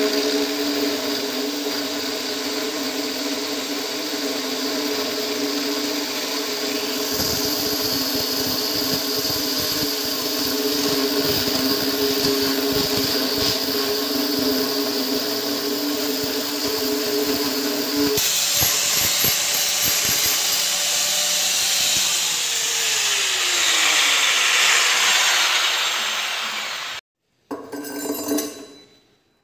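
Mastermax MX-801 angle grinder running a diamond core bit through a stone countertop: a steady motor whine under a grinding, scraping noise, which turns hissier about two-thirds of the way through. Near the end it cuts off abruptly, followed by a brief handling noise as the steel basin waste fitting is set into the hole.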